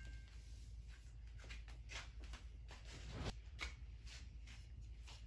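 Quiet room tone with a few faint, scattered soft taps and rustles.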